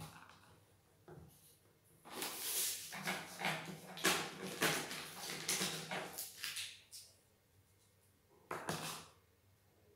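Rustling and clattering of handled objects, such as pens being gathered, in uneven scratchy bursts for about five seconds. One short burst follows near the end.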